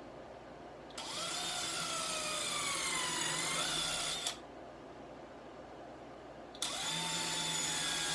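Handheld power drill boring two holes into 2x4 lumber: two runs of a few seconds each with a gap between. In the first run the motor's whine sags in pitch as the bit bites, then picks up just before it stops. The second run holds a steady pitch.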